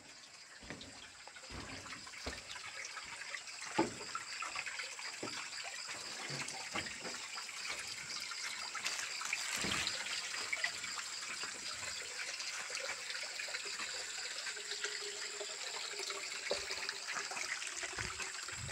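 Water trickling and splashing from a pipe into a bucket, loudest about halfway through, with scattered footsteps.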